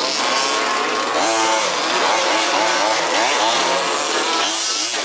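Several 1/5th scale RC off-road buggies' small two-stroke petrol engines racing together, each revving up and down so that the pitches rise and fall and overlap.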